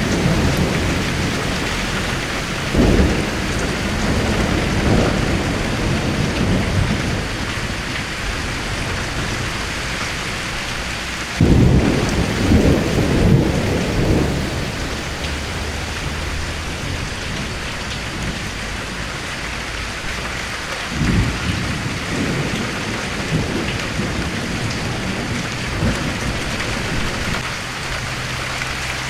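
Steady rain falling, with thunder rumbling in three times: briefly about three seconds in, longest around twelve seconds in, and again around twenty-one seconds in.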